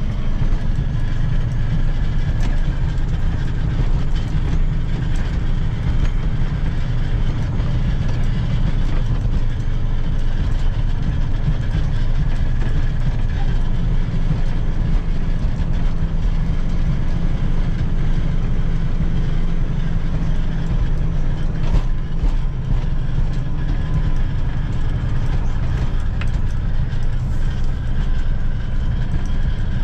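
John Deere 670G motor grader's diesel engine running steadily under load while grading, a constant low drone with no change in pitch.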